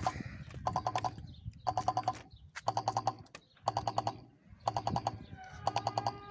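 Railway level-crossing warning bell ringing in short rapid-strike peals about once a second. A distant steady train horn, the Rp1 warning signal, joins near the end.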